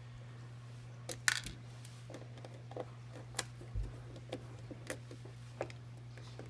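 A dozen or so small, irregular clicks and taps as a hand screwdriver works the screws out of the metal cover of a spa's CLEARRAY UV purifier box, with one dull thump a little before the middle, over a steady low hum.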